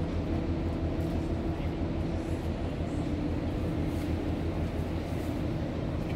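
Steady low rumble of large ship machinery, with a deep drone and a couple of fainter steady hums above it.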